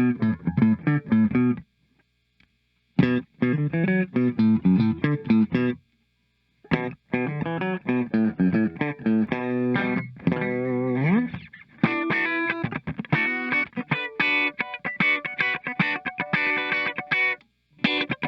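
Squier Classic Vibe '70s Starcaster semi-hollow electric guitar, fitted with a new wiring harness, played clean in a short jam of picked notes and chords. The playing breaks off for about a second twice, and there is a sliding note about ten seconds in.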